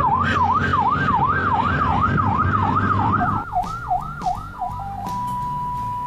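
Ambulance siren heard from inside the cabin, a fast wail rising and falling about three times a second over vehicle road noise. A little past halfway the road noise drops and the wail slows, then switches to a steady high tone that steps down to a lower one at the very end: the siren changing its sound mode.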